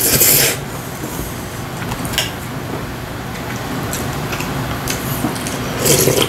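A man slurping in a mouthful of spicy mixed noodles (bibim-guksu), a loud hissing slurp in the first half-second, then slurping egg soup from a wooden spoon in a second loud slurp near the end, over a steady low hum.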